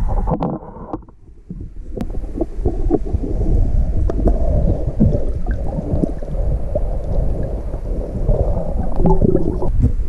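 Muffled underwater sound around a submerged camera: a low rumble of moving water with scattered clicks and knocks, briefly dropping away about a second in.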